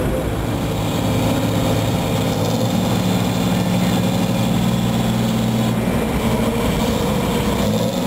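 Boat engine running steadily, a low even hum that eases about six seconds in.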